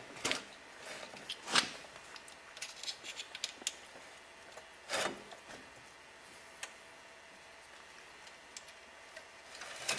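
Metal transmission parts clicking and rubbing as a one-way clutch is twisted back and forth and pushed into place in a Mazda G4 automatic transmission. Scattered light clicks, with louder ones about a second and a half in and again about five seconds in, then mostly quiet.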